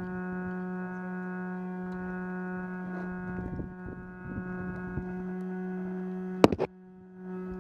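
A steady droning hum with many overtones, broken about six and a half seconds in by three loud, sharp cracks in quick succession, typical of airsoft gun shots. The hum drops out briefly after the cracks.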